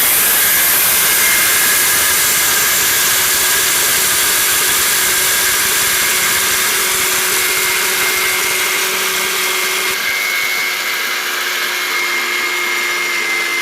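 Maharaja 800-watt mixer grinder running at full speed, grinding whole dried dal into besan flour: a loud, steady high-speed motor whine with the rush of the blades and grain, the sound shifting slightly about ten seconds in.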